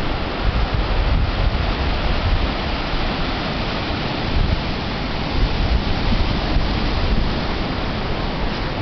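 Ocean surf breaking and washing up a sandy beach, with wind gusting on the microphone as a low rumble.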